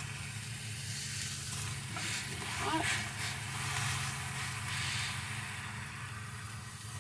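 Food sizzling in a hot frying pan, a shifting hiss over a steady low hum.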